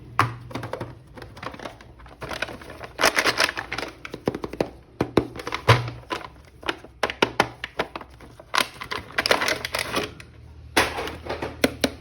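Hands handling a plastic-packaged toy action figure: bursts of clicking, tapping and crinkling plastic.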